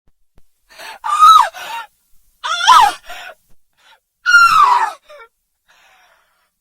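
A woman screaming in anguish: three loud cries in a row, each falling in pitch, each followed by a shorter, quieter cry.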